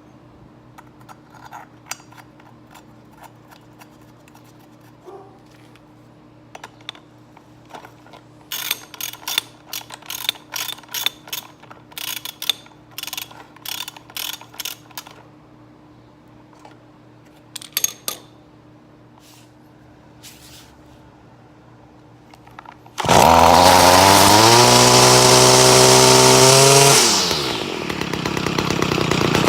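Sharp metallic clicks and rattles as the new exhaust fitting is screwed in and tightened. Then the Stihl FS-55R's small two-stroke engine runs at high revs, drops back about four seconds later, and revs up again near the end. It is running with its clogged exhaust screen fitting replaced by a clean one.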